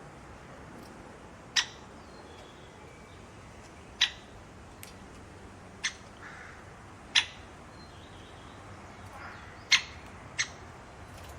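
A bird giving short, sharp calls, six in all, a second or two apart at uneven intervals, over a faint steady hiss.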